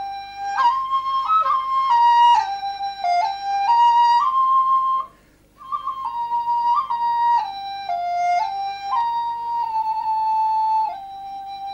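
Background music: a solo flute playing a slow melody of held notes, with a short break about five seconds in and a long held note near the end.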